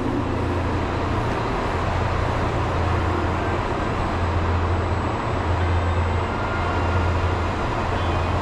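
Steady low hum and hiss of a train standing at a station platform.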